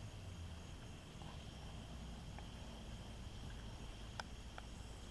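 Faint outdoor night ambience: a steady high chirring like crickets over a soft hiss, with a few light ticks in the second half.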